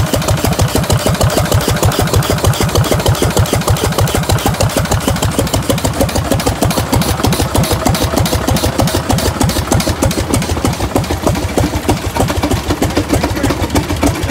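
Antique Avery tractor's engine running steadily on a stationary idle, with an even, rapid beat of firing strokes.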